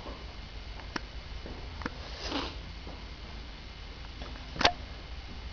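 A short breathy sound about two seconds in, between a few faint clicks, with one sharper, louder click near the end.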